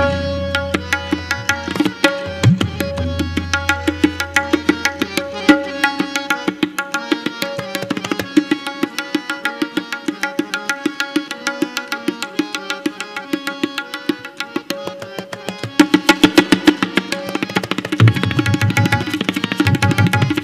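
Tabla solo: a fast, dense run of strokes on the treble drum, with deep bass-drum strokes whose boom bends in pitch, loudest near the start and again near the end. Under it, a harmonium repeats a steady melodic cycle (the lehra) that keeps the time.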